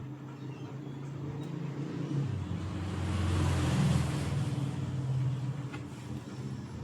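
Zebronics home theatre's speakers and subwoofer playing audio on test: steady low bass tones, with a rushing sound that swells about two seconds in and fades near the end. The sound is coming through properly, a sign that the amplifier's audio section works.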